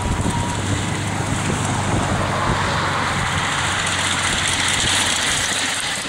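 Miniature steam locomotive and its passenger car running past on the raised track: a steady rolling rumble and hiss with a low hum underneath.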